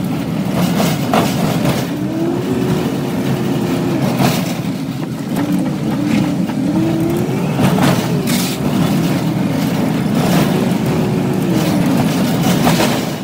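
Ford delivery step van driving up a gravel lane, heard from inside the cab: the engine runs with its pitch rising and falling as the driver works the throttle, over steady road noise, with several knocks and rattles from the rough lane.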